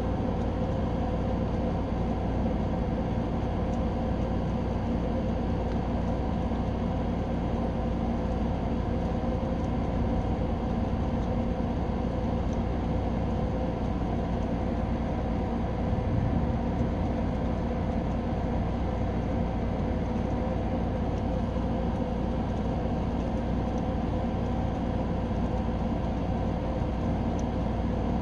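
Steady machine hum, a low rumble with several fixed tones, unchanging throughout, with a brief low bump about halfway through.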